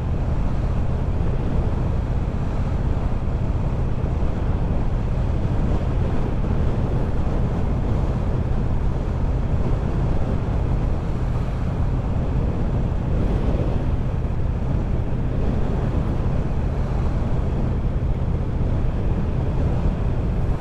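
Triumph Bobber's 1200 cc parallel-twin engine running at a steady cruise, with wind noise on the microphone. The engine note and road speed hold even throughout, as on cruise control.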